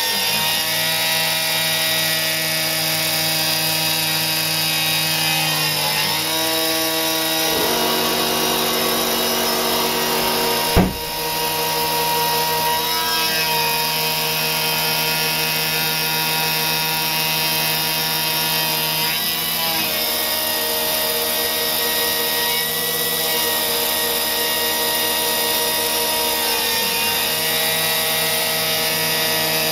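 CNC gantry milling machine's spindle and end mill cutting aluminium: a steady mechanical whine made of many tones, whose pitches change several times as the machine moves. A single sharp knock about eleven seconds in.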